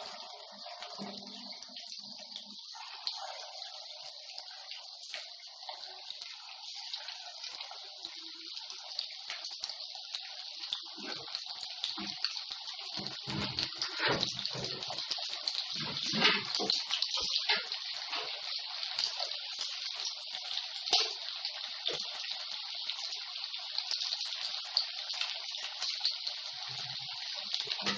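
Leftover-rice cutlets deep-frying in hot oil in a kadhai: steady sizzling with frequent crackles, growing louder after about ten seconds.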